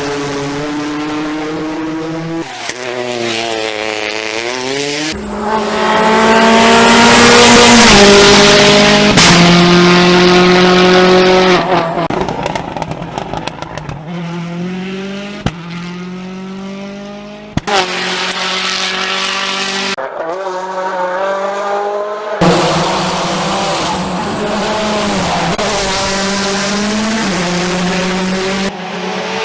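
Rally cars at full throttle, engines revving high and dropping in pitch through quick gear changes as they accelerate past, in a string of separate passes that cut in and out abruptly. The loudest pass comes about a quarter of the way in.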